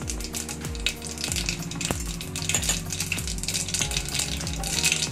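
Mustard and cumin seeds frying in hot oil, sizzling with many small crackling pops, over background music with a low repeating beat.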